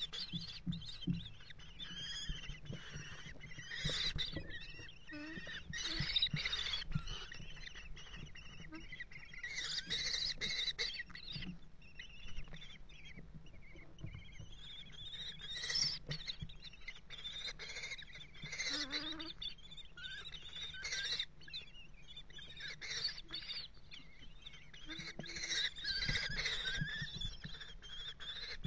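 Common kestrels calling: repeated high-pitched calls in irregular bouts.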